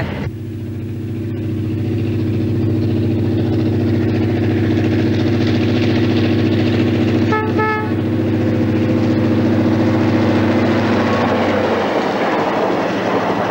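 Ghan diesel locomotive passing with a steady low engine drone that swells over the first few seconds. A short tooting sound comes about seven seconds in. Near the end the drone gives way to the rumble and clatter of train wheels on the rails.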